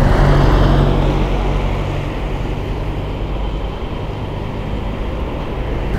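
A motor vehicle's engine running close by, with a low hum that is loudest in the first second and fades over the next couple of seconds, over a steady rumble of traffic.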